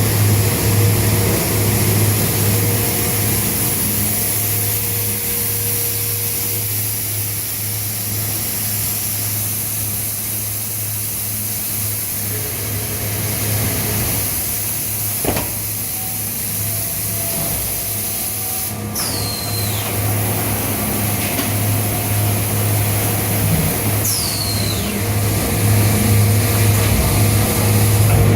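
Automatic pressure-vacuum forming machine running while it forms an ABS door panel: a steady low hum under a hiss. There is a sharp knock about halfway through, and two falling high whistles in the second half.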